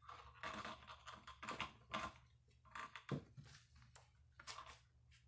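Faint scattered rustles and light clicks over a steady low hum.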